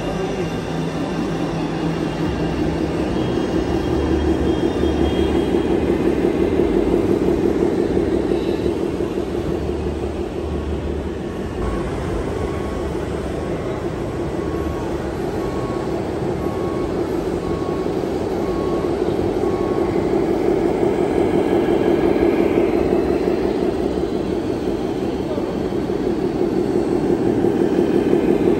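Radio-controlled model trucks' sound modules playing a running diesel truck engine, steady and rumbling, growing louder near the end as a truck drives up close. A regular series of short beeps, about one a second, sounds for roughly ten seconds in the middle.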